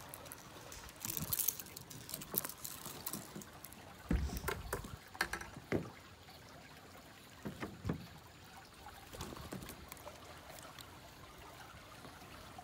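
Water trickling and splashing in small irregular bursts, with scattered clicks and a few dull knocks, the loudest about four seconds in.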